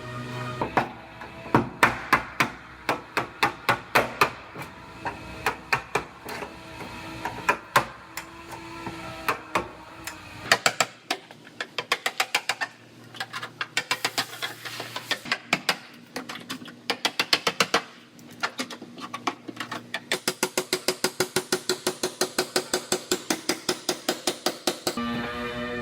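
Hammer striking car body sheet metal over and over, irregular at first and then in a fast, even run near the end, over background music.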